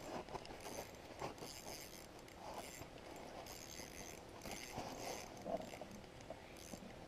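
Faint, scattered rustles and scrapes of handling noise, with no steady sound under them.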